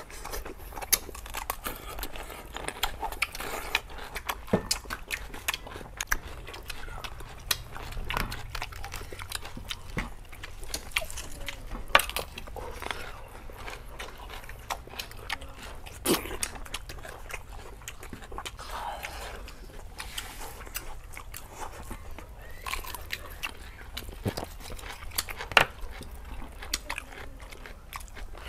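Close-up eating sounds of people eating roast pork leg and raw vegetables with their hands: chewing and lip smacking, with many sharp, wet clicks scattered throughout.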